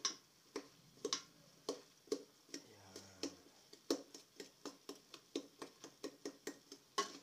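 Metal spoon clinking against the side and bottom of an aluminium pot as chicken pieces and a chicken bouillon cube are stirred, in light, quick clinks about three a second.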